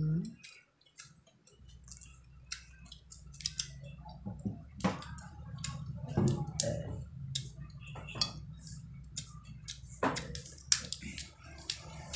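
Irregular clicks and sharp cracks of mud crab shell being broken and picked apart while eating, with a few louder cracks, over a steady low hum that comes in about a second and a half in.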